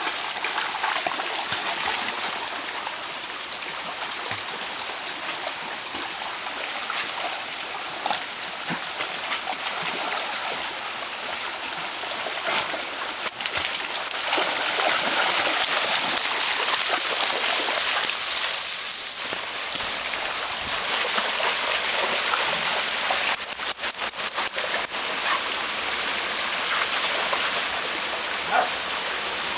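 Shallow creek water running and rippling over rocks, with splashing from dogs wading and swimming through it, loudest in the middle stretch.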